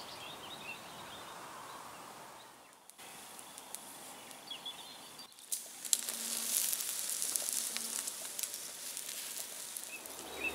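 Birds chirping at first, then, about six seconds in, sausages sizzling and crackling on glowing campfire coals, the loudest part.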